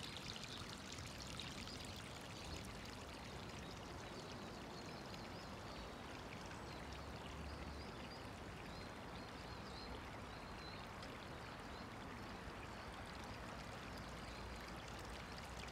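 Steady rushing of running water, with a few faint high chirps through the middle.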